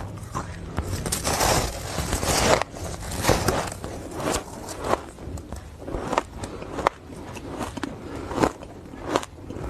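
Ice being bitten and crunched between the teeth close to the microphone. A dense burst of crunching comes about a second in, followed by a string of separate sharp cracks as the pieces break up.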